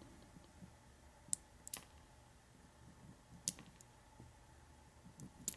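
Light, sharp clicks of small metal lock pins being handled from a disassembled padlock cylinder, about four distinct ticks spaced a second or two apart, with fainter ones between.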